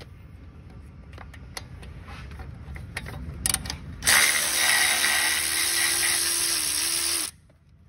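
Milwaukee stubby cordless impact wrench run on a bolt for about three seconds, starting about four seconds in and stopping abruptly. Before it, a few light clicks of tools being handled.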